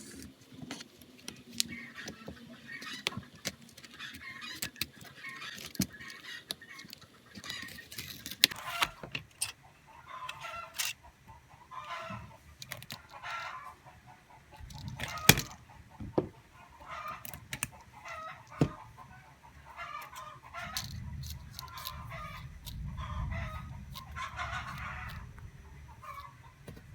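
Scattered sharp clicks and taps, with repeated short animal calls behind them throughout and a low rumble for a few seconds near the end.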